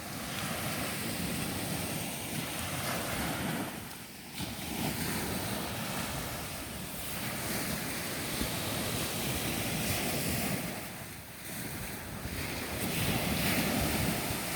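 Ocean surf washing onto the beach, the waves swelling and easing with the loudest surge near the end, with wind rumbling on the microphone.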